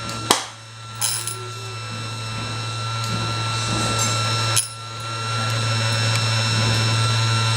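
Electric multifunction sharpening machine running, a steady motor hum with a thin whine over it. A sharp click comes about a third of a second in, and the sound briefly drops off about four and a half seconds in before building back up.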